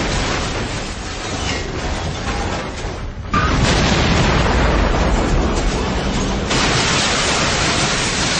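Cars exploding in fireballs, a dense, rumbling blast noise. After a brief dip, a sudden louder explosion comes about three and a half seconds in.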